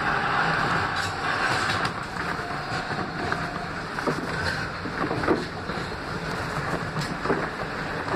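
R160B Siemens subway train running on the rails: a steady rumble of wheels and track, with a few sharp clicks and knocks in the second half.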